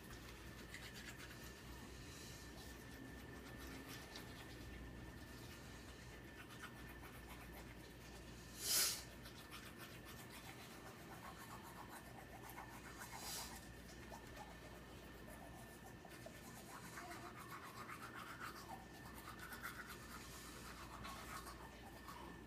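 Toothbrush scrubbing teeth, a faint soft bristle brushing, with a short louder rush of noise about nine seconds in and a smaller one a few seconds later.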